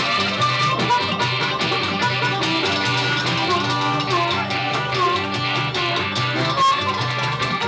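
Live bluegrass-rock band playing, with a harmonica carrying the lead line over guitar, upright bass and a steady drum beat.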